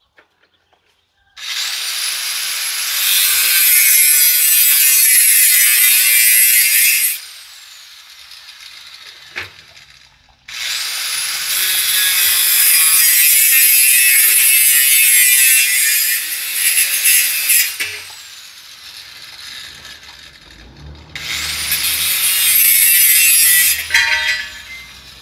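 Angle grinder with a cut-off disc cutting through steel tubing. It makes three cuts, each a loud, high-pitched screech that starts with the motor's rising whine as it spins up and ends with a falling whine as it winds down. The first two cuts last about six and seven seconds and the last about three.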